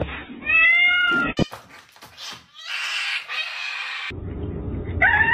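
A domestic cat meows once, about half a second in: one pitched meow that rises and falls. Later comes a stretch of hissy noise lasting over a second.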